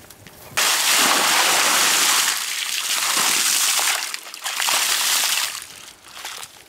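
Water poured from aluminium pots, splashing onto dug earth in a muddy pit to soak it into mud. It starts suddenly about half a second in and comes as roughly three pours, then stops shortly before the end.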